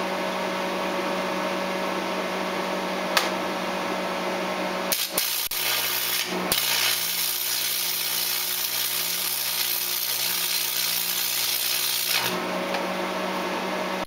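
Lincoln AC/DC 225/125 transformer stick welder humming steadily while switched on, set to AC. About five seconds in, an arc is struck with a 6011 electrode. It stutters briefly, then settles into a steady sizzle for about six seconds and breaks off, leaving the welder's hum.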